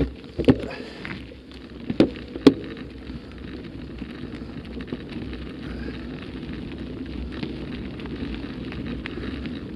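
Mountain bike tyres rolling over a loose gravel track, a steady rough rolling noise, with four sharp knocks in the first three seconds as the bike jolts over the stones.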